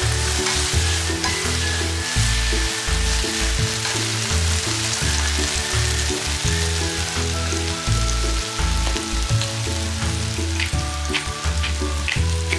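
Spaghetti sizzling in hot olive oil in a frying pan as it is tossed and stirred with chopsticks. Near the end, a pepper mill grinds in a quick run of short clicks. Background music with low changing notes plays underneath.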